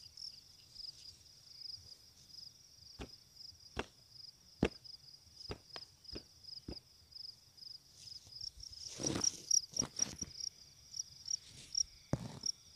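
Field cricket chirping steadily in a rapid, high-pitched pulsed trill. Scattered sharp clicks and a burst of rustling in dry rice stubble come from hands and feet working the ground, the rustling loudest a little past the middle.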